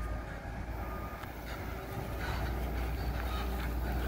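Steady, low diesel engine rumble from a reach stacker at a container terminal, with faint short beeps coming and going.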